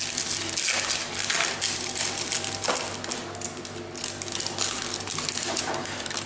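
Yu-Gi-Oh trading cards and foil booster-pack wrappers being handled: a dense run of small clicks and crinkling rustles as cards are flicked through and laid down.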